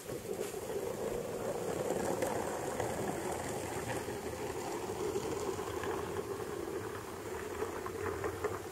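Steady low rushing noise that wavers slightly, with no distinct knocks or voices.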